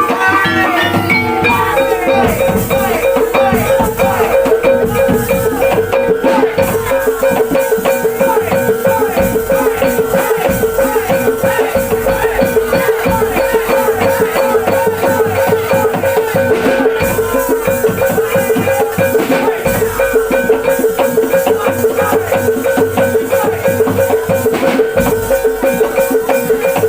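Loud Javanese barongan music: drums, rattles and struck metal keys in a fast, continuous rhythm over a steady held tone.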